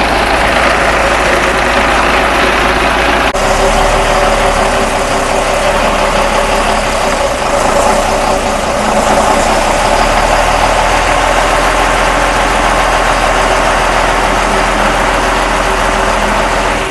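A vehicle engine running steadily, with an abrupt change in the sound about three seconds in.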